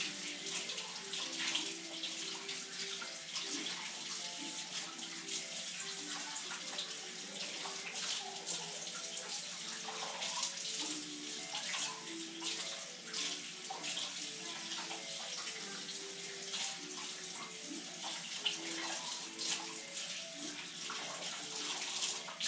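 Kitchen tap running into a sink, with irregular splashing as a freshly opened rooster gizzard is rinsed clean of grit and gravel under the stream.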